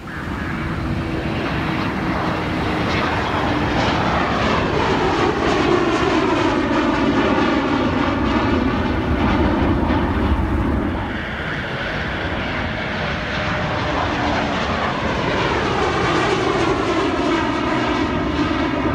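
Jet engines of a McDonnell Douglas MD-80-series airliner running at takeoff power as it climbs out and passes overhead: a steady roar with a whooshing sweep that rises and falls in pitch as it goes by.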